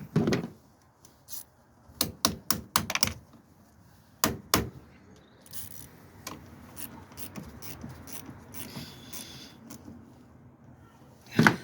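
Sharp metallic clicks and knocks of hand tools working a car battery's terminal clamp: a quick run of clicks about two seconds in, two louder knocks a little after four seconds, and another knock near the end. The engine is not running.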